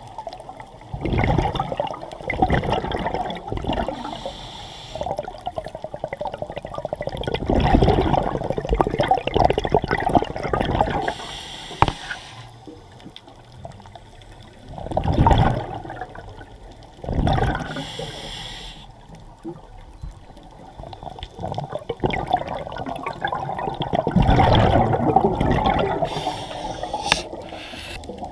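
Scuba regulator breathing underwater: bursts of exhaled bubbles gurgling, one to three seconds long and several seconds apart, with a couple of sharp clicks.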